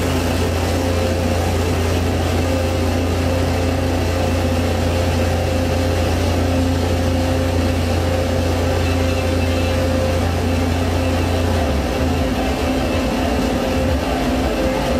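Loud, dense electronic drone from a table-top rig of electronic instruments played live: a thick steady low hum with held higher tones over a noisy wash. About twelve seconds in, the low hum breaks up and wavers.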